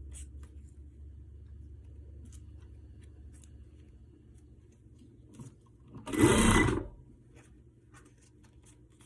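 Sewing machine stitching in one short burst of under a second, about six seconds in, among faint clicks and rustles of fabric being handled.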